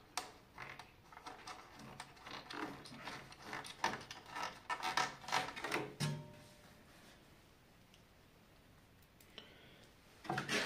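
Light clicks and knocks of hand tools and metal parts during reassembly of a Belmash 2200 thickness planer's cutter-head cover and its bolts. They come irregularly, a few a second, for about six seconds and end in one heavier knock with a short ring. A few more clicks come near the end.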